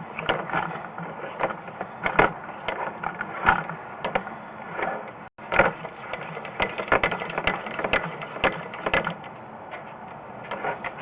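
Irregular clicking and rattling over a steady mechanical noise as a sewer inspection camera's push cable is fed by hand down a 4-inch drain line, shoving food debris ahead of the camera head.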